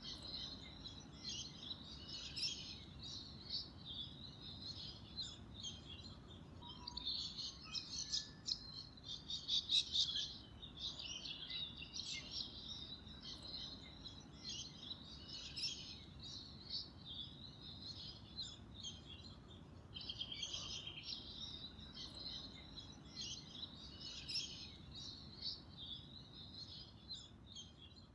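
Small birds chirping and calling together in a dense chorus of rapid, high notes, loudest about ten seconds in.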